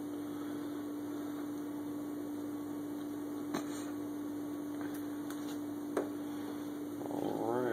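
Steady electrical hum, with two faint clicks about three and a half and six seconds in as a small plastic pH test block and dropper bottle are handled. A brief wavering sound comes just before the end.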